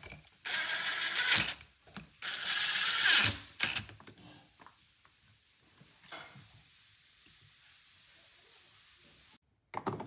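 DeWalt 20V XR cordless impact driver driving two screws, running in two bursts of about a second each, a little over a second apart.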